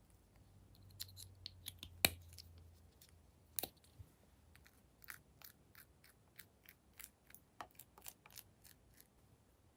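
Glossy slime being worked by hand, giving irregular small sticky clicks and pops, a few a second, with one louder pop about two seconds in.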